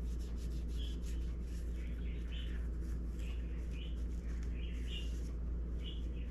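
A wipe rubbed around the inside of a clear plastic phone case: soft rubbing with short, high chirp-like squeaks every second or so. A steady low hum sits underneath.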